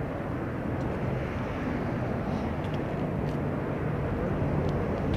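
Steady low rumble of vehicle noise with a faint hum, unchanging throughout.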